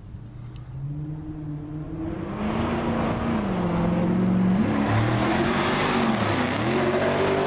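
An engine running and growing louder over the first two seconds or so, its pitch rising and falling in steps as the revs change.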